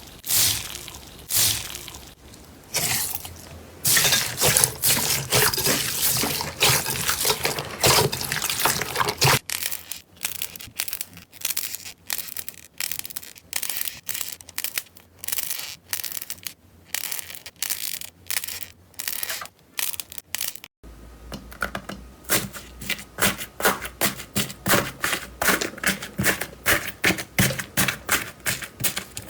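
Slime being squeezed, pressed and pulled by hand: wet squishing and sticky popping in a string of short clips, ending in a fast run of crackling pops, several a second.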